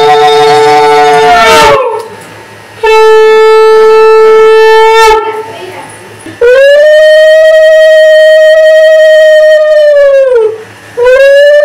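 Conch shells (shankha) blown in long, loud blasts, each rising into a steady note and drooping in pitch as it dies away. Two conches sound together at the start, a second blast follows about three seconds in, a longer one runs from about six and a half to ten and a half seconds, and another begins near the end.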